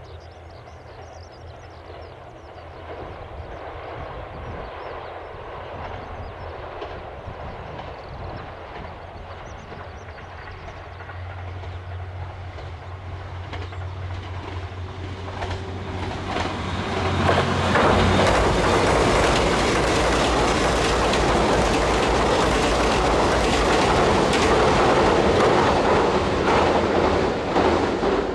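KiHa 189 series six-car diesel limited express approaching and passing at speed: a low engine hum grows steadily louder, and from about two-thirds of the way through the wheels clatter loudly on the rails as the cars go by.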